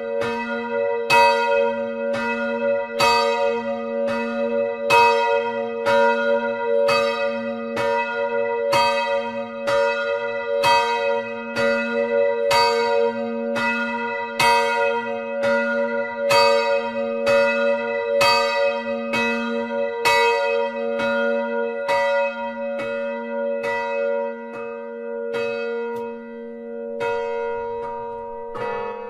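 A single swinging bronze church bell ringing, its clapper striking about once a second over a long, steady hum. Toward the end the strokes weaken, and right at the close a different bell of the peal begins to sound.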